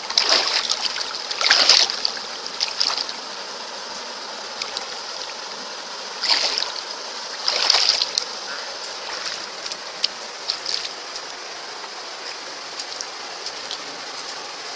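Water splashing in short bursts, several in the first three seconds and two more about six and eight seconds in, over a steady hiss of moving water.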